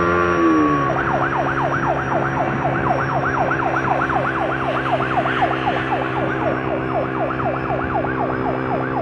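Emergency vehicle siren in fast yelp mode, about four rising-and-falling sweeps a second, taking over about a second in from a steady tone that drops away. A steady engine hum runs underneath.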